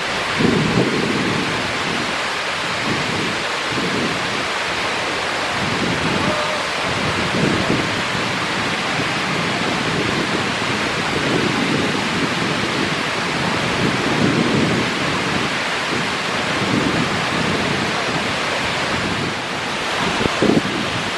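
Artificial waterfall at full flow: a steady rush of water falling and splashing over rock, with a low rumble that swells and fades.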